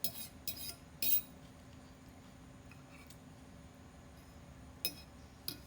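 Cutlery clinking against dishes: a few short clinks in the first second, then two more near the end, over a faint steady hum.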